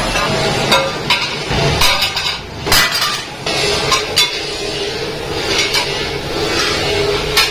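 Irregular metallic clinks and knocks of metal being struck or handled, over a steady workshop hum.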